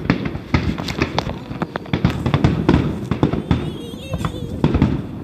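Fireworks bursting in quick succession overhead: a dense run of sharp bangs and crackles, several a second.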